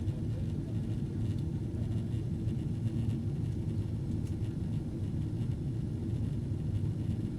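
Steady low rumble of cabin noise inside a Boeing 767-400 airliner, engines and airflow running evenly with no distinct events.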